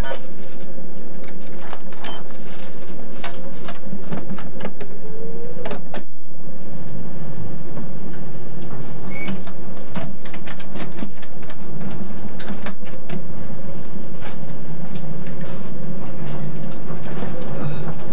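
Docklands Light Railway train heard from inside the front of the car as it runs: a steady electric drone with a held hum, many clicks and knocks from the wheels and car body, and a short rising whine about five seconds in.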